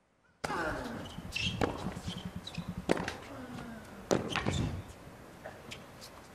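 Tennis rally on a hard court: racket strikes on the ball about every second and a half, with short squeaks of footwork and a low crowd murmur between shots. Silent for the first half second.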